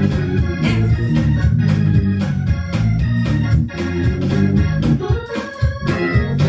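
Worship music: sustained chords over a regular beat, about two beats a second.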